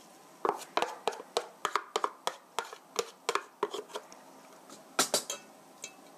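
Grated carrot being knocked out of a plastic grater box into a stainless steel mixing bowl with chopsticks: a quick run of light clicks and knocks as the box and chopsticks tap against the bowl. A louder clatter comes about five seconds in.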